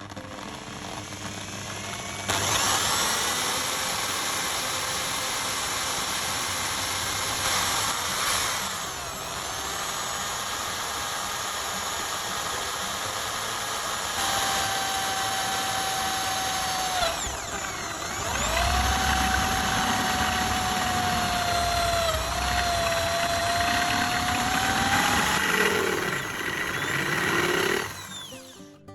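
Electric power tool motor running with a whine. It starts a couple of seconds in, its pitch dips briefly under load about a third and again about two-thirds of the way through, and it stops near the end.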